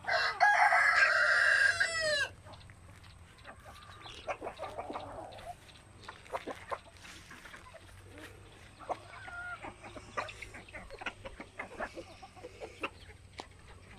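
A rooster crows once, loud and drawn out for about two seconds, with the call dropping in pitch at the end. After it, free-range chickens in a mixed flock cluck and give short calls.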